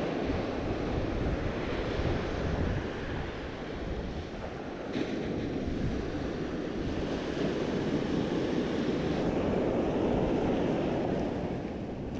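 Ocean surf breaking and washing up the beach, swelling and easing, with wind buffeting the microphone.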